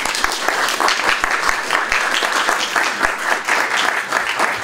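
Audience applauding at the end of a lecture: dense, steady clapping from many hands.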